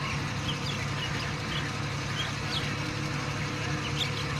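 Steady low hum of a distant engine, with scattered short, faint chirps of small birds.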